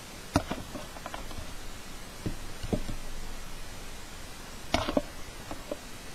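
Several sharp clicks and knocks at irregular intervals, the sound of small hard objects being handled and set down on a desk, with a pair of louder knocks near the end.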